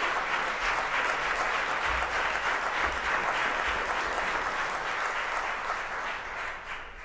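Theatre audience applauding, dying away near the end.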